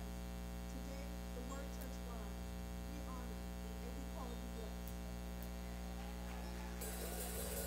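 Steady electrical mains hum on the recording, with faint, indistinct voices in the background. Near the end, a cymbal wash comes in as music begins.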